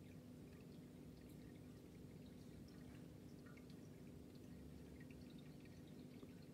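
Faint aquarium filter running: a steady low hum with scattered small water drips and trickles.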